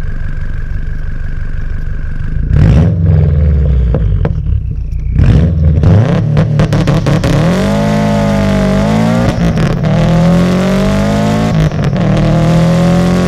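2007 Subaru WRX STI's turbocharged 2.5-litre flat-four, catless with a titanium catback exhaust, idling, then revved hard twice, about 2.5 and 5 seconds in. It then pulls away under acceleration, the pitch climbing and dropping back as it shifts up.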